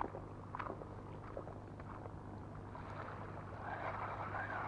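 A steady low engine drone that swells into a louder, wavering hum in the last second or so, with a few light clicks near the start.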